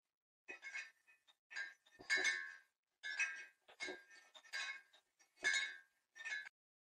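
Glass or ceramic kitchenware clinking as it is handled: a quick series of about a dozen sharp clinks, each with a brief ring, ending abruptly near the end.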